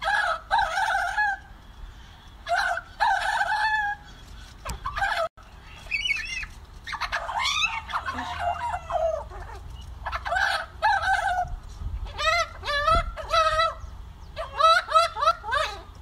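Young Australian magpie calling at close range: a string of short wavering calls about a second each, turning into a quicker warbling run near the end.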